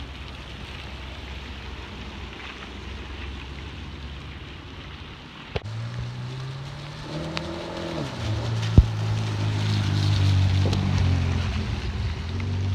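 An HSV Commodore's engine rumbles low as it drives away on wet tarmac. A red Ferrari then approaches and passes close, its engine note rising and falling and getting louder, with a sharp crack about nine seconds in. Rain hisses underneath.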